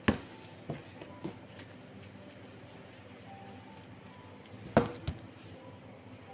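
Sharp knocks on a kitchen worktable as dough is cut and handled by hand: five in all, the loudest right at the start and another loud one just before five seconds in, over a faint steady hum.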